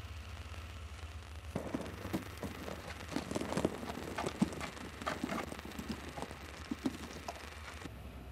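A small knife cutting and paring wood: irregular clicks and short cutting strokes for about six seconds, starting about a second and a half in, over a steady low hum.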